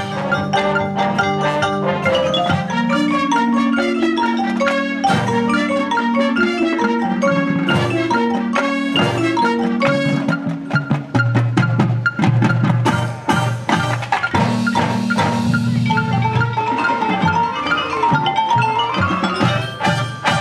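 Marching band playing, with the pit's marimbas and other mallet percussion loudest, struck notes running quickly over sustained low brass notes and drums.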